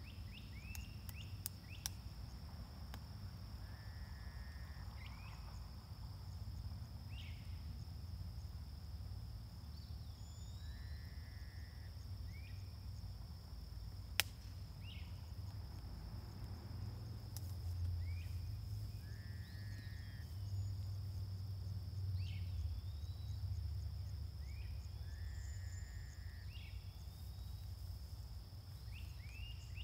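Outdoor evening ambience: a steady high-pitched insect drone, with birds calling every few seconds in short rising chirps and brief trills, over a low rumble. A single sharp click comes about halfway through.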